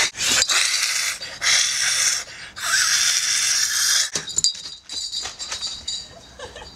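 A person hissing like a frightened cat: four loud hisses in quick succession, then softer scuffling and clicks.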